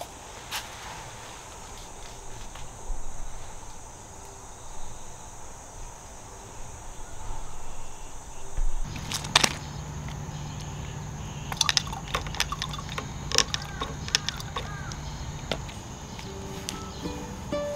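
Outdoor garden ambience with a steady high insect drone. About nine seconds in the background changes to a steady low hum with scattered sharp clicks and a few short chirps, and plucked-string music begins right at the end.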